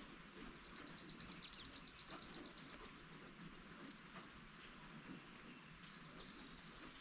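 Faint, steady rain with scattered drip ticks. From about half a second in until nearly three seconds, a high, rapid trill of about ten notes a second sounds over it.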